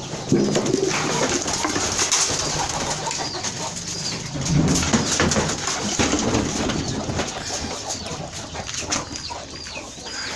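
A flock of farm birds calling: low repeated cooing calls with short, high peeps scattered through.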